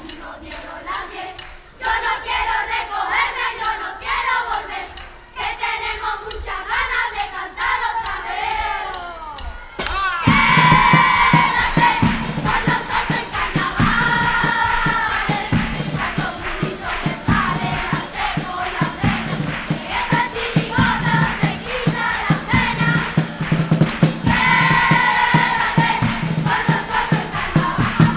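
Children's carnival chirigota singing in chorus. About ten seconds in, the drums and the whole group come in together, louder, to a steady beat.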